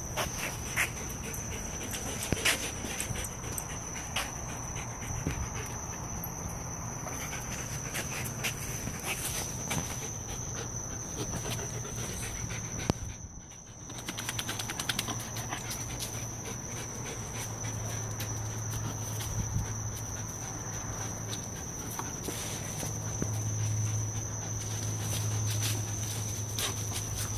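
A wolfdog and a pitbull puppy panting as they sniff and play, with scattered clicks and scuffs from their movement. A steady high-pitched tone and a low hum sit underneath.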